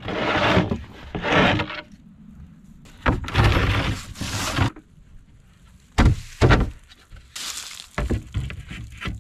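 Painted wooden panels of a homemade handcart being folded out into a bunk bed. They scrape and rattle as they are moved, then give two sharp knocks about six seconds in and a few lighter knocks near the end.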